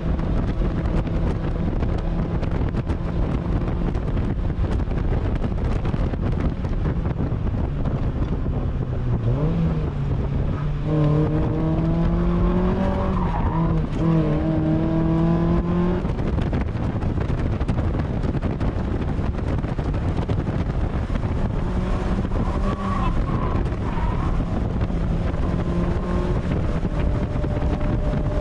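Mazda MX-5's four-cylinder engine running hard on track, heard from the open cockpit over heavy wind and road noise. About nine seconds in the engine note drops, then climbs steadily for several seconds before easing off.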